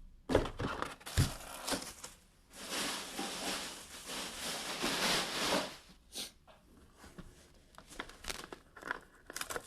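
Plastic shrink wrap being torn and crinkled off small trading-card boxes: scattered sharp crackles and taps, with a continuous stretch of tearing and crinkling for about three seconds in the middle.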